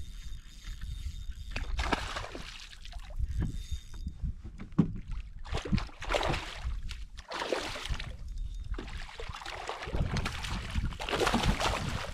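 Kayak paddle strokes swishing and splashing through the water, one every second and a half to two seconds.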